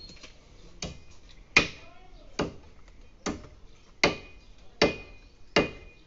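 Repeated chopping blows of a blade into tree wood: seven sharp strikes in a steady rhythm, a little under a second apart, the later ones leaving a brief ringing tone.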